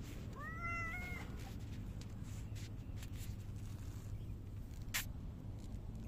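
A silver tabby cat gives one short meow about half a second in, rising in pitch and then holding level. A single sharp click sounds near the end.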